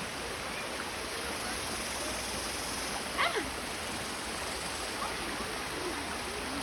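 Steady rushing of flowing water, with one short high cry sliding down in pitch about three seconds in.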